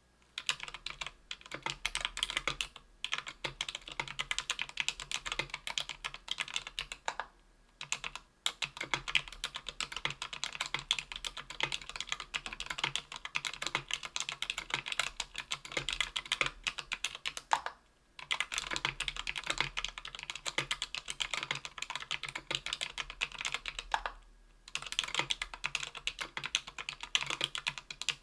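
Fast, continuous typing on a Tofu 60% aluminium keyboard with CannonKeys Lilac 65g tactile switches lubed with Krytox 205g0, on an aluminium plate. The keystrokes come in quick runs broken by a few brief pauses.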